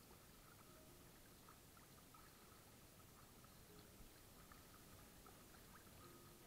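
Near silence: faint water against an inflatable kayak's hull, a steady hiss with scattered small faint ticks.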